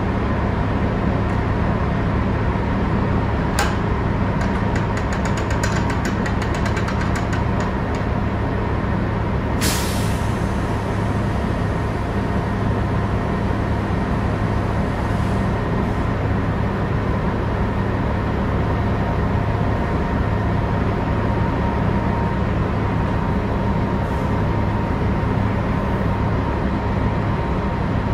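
Gate of a Timpte hopper-bottom trailer being cranked open by hand to unload into a receiving pit, with a run of quick ratcheting ticks about four seconds in and a brief sharp noise near ten seconds. All of it sits under a loud, steady mechanical hum.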